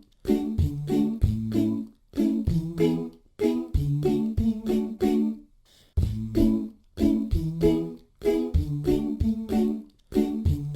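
Vocals-only background music: layered a cappella voices singing short repeated phrases over a steady beat that is also made by voice.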